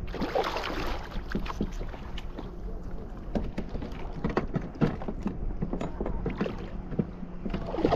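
Water sloshing and slapping against a fishing kayak's hull, with irregular small knocks and a steady low wind rumble on the microphone.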